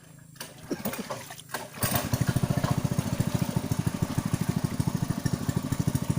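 Small engine running with a fast, even chug that comes in about two seconds in, after a few knocks.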